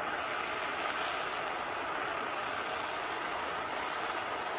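Handheld Bernzomatic MAP gas torch burning with a steady hiss, its flame held on wet paint on plywood to scorch and bubble it.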